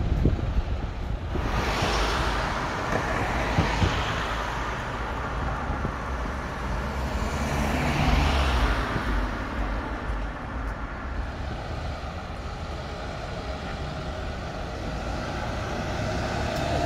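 Street traffic: vehicles pass twice, a few seconds apart, over a steady low engine rumble.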